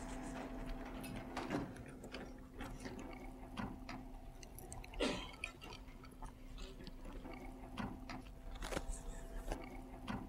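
Quiet room tone in a lecture hall: a faint steady hum with scattered small clicks, knocks and rustles from the audience while they answer on response keypads, a few of the knocks a little louder.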